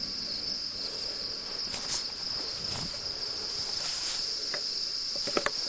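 A steady, high-pitched insect trill, with a few faint clicks and rustles and a sharper pair of clicks near the end.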